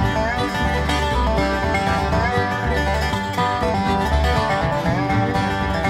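Background music: an acoustic folk instrumental with plucked strings and a steady beat.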